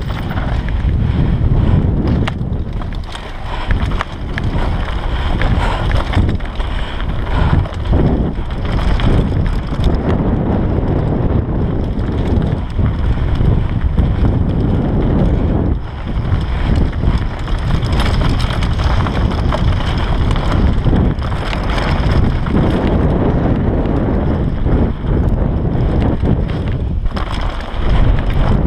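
Wind buffeting the GoPro Hero 3 Black's microphone as a Bergamont BigAir 6.1 downhill mountain bike runs fast over a dirt trail, with frequent rattling knocks from the bike over rough ground.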